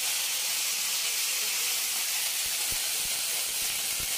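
Steamed broccoli florets sizzling in hot mustard oil in a metal kadai, a steady hiss. From about halfway through come a few light knocks of the metal spatula stirring them against the pan.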